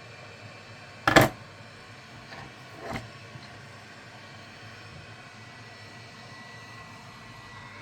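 Steady blowing hiss of a hot air gun running on the YCD-8582D station, with a loud sharp knock about a second in and two lighter knocks a second or two later. From about halfway through, a thin steady high whine joins the hiss.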